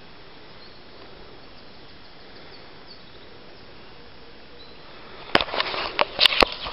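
Quiet woodland air with a few faint bird chirps. About five seconds in, a quick run of sharp knocks and rustles cuts in, much louder than the background.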